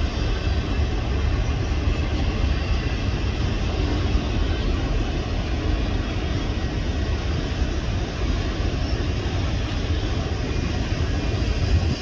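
Freight train of autorack cars rolling past on the mainline: steady, unbroken noise of the cars and wheels on the rails.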